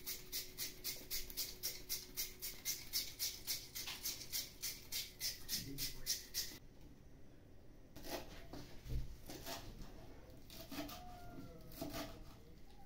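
Raw potato being grated on a small plastic hand grater: quick, even rasping strokes about four a second, stopping about six and a half seconds in. After a short pause, a knife chopping fresh herbs on a wooden board in scattered, uneven knocks.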